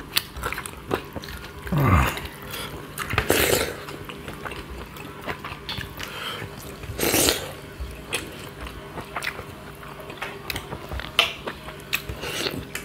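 People eating rice and fish curry by hand: chewing and mouth noises with fingers scraping and clicking on steel plates, and two louder noisy bursts about three and seven seconds in.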